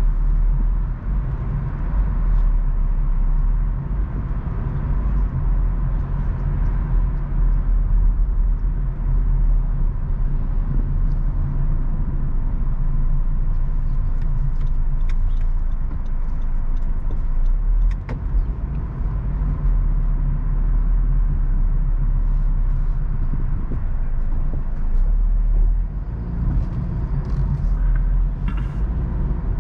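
Steady low rumble of a car driving on city streets, heard from inside the cabin, with scattered faint clicks and ticks in the second half.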